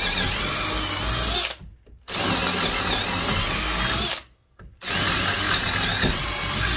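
DeWalt 20V Max cordless drill on its fast speed, boring a large bit into a pressure-treated 2x4. It runs in three bursts with short stops, about 1.5 and 4 seconds in, and the motor's whine wavers as the bit bites.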